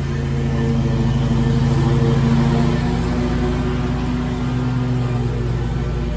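Engine of a Gravely stand-on commercial mower running at steady cutting speed while it mows long, thick grass. Its note shifts slightly lower partway through.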